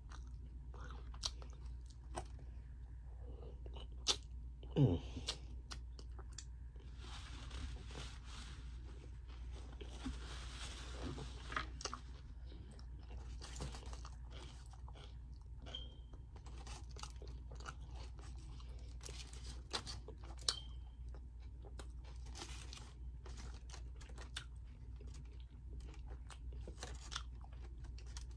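A person chewing and crunching on tacos, with scattered crackles and the crinkle of the aluminium foil they are wrapped in.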